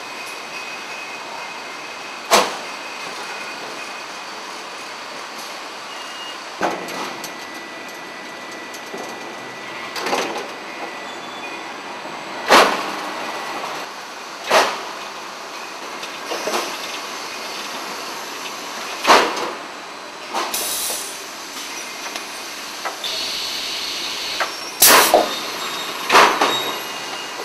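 Automated pallet-handling line with roller conveyors running, a steady mechanical noise broken by sharp metallic clanks every two to four seconds. Short hisses of compressed air come in the second half, the longer one lasting about two seconds.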